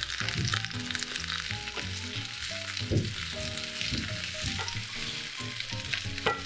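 Red onion rings sizzling and crackling as they fry in olive oil in a non-stick frying pan, turned now and then with a wooden spatula, which knocks lightly against the pan a couple of times. Soft background music plays underneath.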